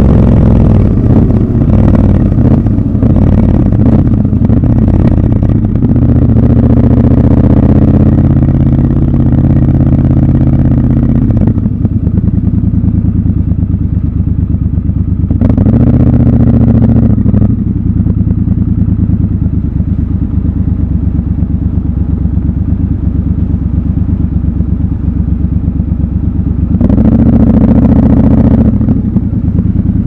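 Triumph Scrambler 1200 XC's 1200 cc parallel-twin engine easing off from road speed, its pitch falling, then idling from about a third of the way in. The engine rises briefly twice, about halfway and near the end, as the bike creeps forward at low speed.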